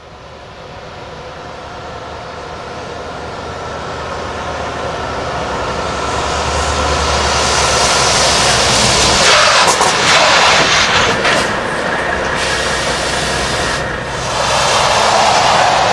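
Volvo truck approaching at speed, its engine and tyre noise growing steadily louder. It then brakes hard, with loud hissing and tyre noise in the second half, as the automatic emergency brake brings it to a stop.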